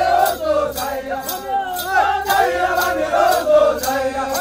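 A group of voices singing and chanting together, many overlapping, over a sharp beat about twice a second, as for a dance.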